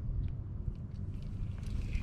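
Low rumble of wind buffeting the microphone in a kayak, with faint clicks as a spinning reel is wound in.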